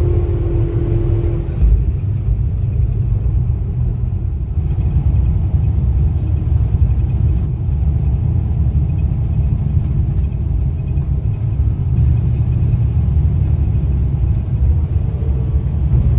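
Steady low rumble of road and engine noise heard from inside a moving vehicle.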